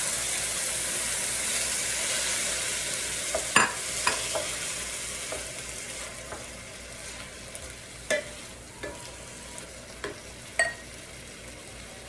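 Cubed cooked chicken and its juices sizzling in a hot electric skillet of vegetables, the sizzle strongest at first and fading. A wooden spatula stirs the pan, knocking sharply against it a few times.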